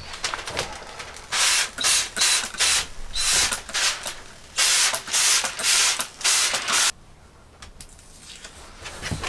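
Hand-pump spray bottle spritzing a school bus window for tint film: a run of short hissing sprays, about seven over some five seconds, then they stop.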